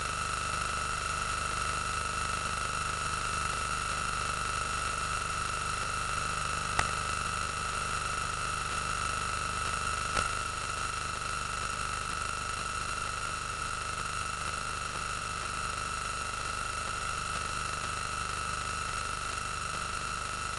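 Steady hiss with a constant high-pitched hum and its overtones, broken by two faint clicks, one about seven seconds in and one about ten seconds in.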